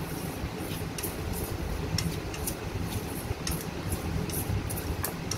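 Chopsticks mixing a wet marinade of chicken, mushrooms and red dates in a stainless steel bowl, with irregular light clicks as they hit the bowl, over a steady low rumble.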